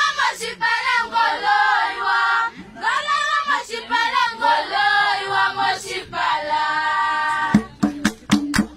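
A group of women singing an Owambo dance song together, unaccompanied. Near the end the singing stops and sharp percussive beats start in a quick rhythm.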